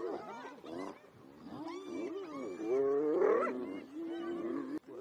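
Wild animal calls: several overlapping pitched, wavering cries that swell and fall, dipping about a second in and loudest a little past the middle.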